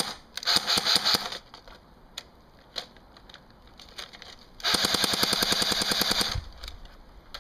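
Cyma AK-47 airsoft electric gun firing one full-auto burst of about a second and a half, at about a dozen shots a second on an 8.4 V battery. It is preceded, about half a second in, by a second of rattling clatter.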